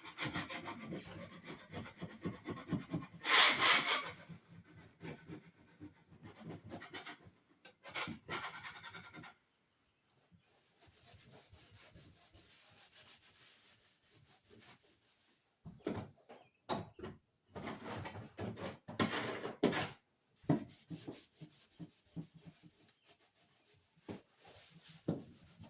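Rapid rubbing strokes of a sponge and scraper scrubbing grease off the side of an oven, stopping for several seconds midway, then resuming with a few sharp knocks.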